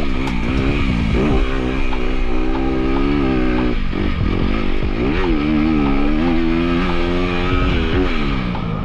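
Dirt bike engine revving hard and easing off as the rider works the throttle through the track, its pitch climbing and falling several times.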